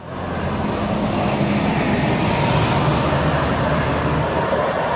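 Intercity coach bus driving close past, its diesel engine running with a steady low drone under road noise, growing louder over the first second and then holding steady.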